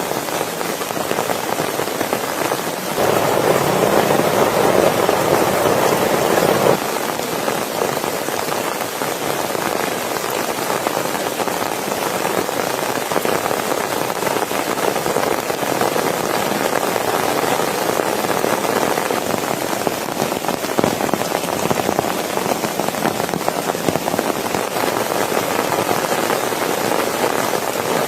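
Steady rain falling. It grows louder and heavier from about three seconds in, then drops back suddenly near seven seconds.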